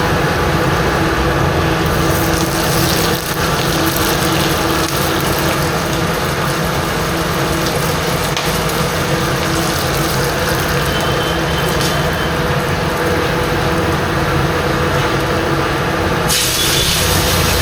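Restaurant kitchen equipment running with a steady, loud rushing noise over a low hum, the hiss growing brighter about two seconds in and again near the end.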